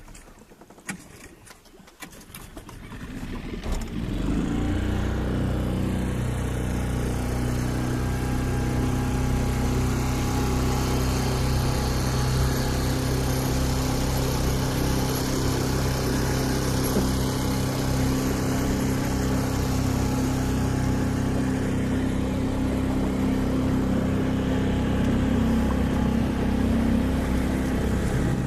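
Boat motor coming up about three seconds in after a few clicks, then running steadily at constant speed, with noise of water and wind over it as the boat gets under way.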